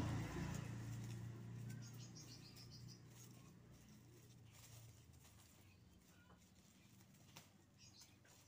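A vehicle engine's low hum fading away over the first few seconds. After it, faint bird chirps and a few small clicks in a quiet rural setting.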